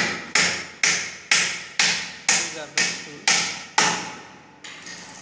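Hand hammer striking wood nine times in an even rhythm, about two blows a second, stopping a little before the end.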